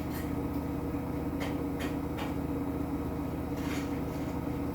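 Hoover H-Wash 300 washing machine spinning its drum during the intermediate spin before the last rinse: a steady motor hum with a fast even flutter, and a few light clicks.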